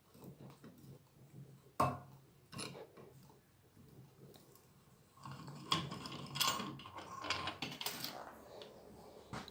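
Metal clicks and clinks of a valve spring compressor and valve parts being worked on a 5.9 L Magnum V8 cylinder head: a couple of single knocks, then a busy run of clatter from about five seconds in.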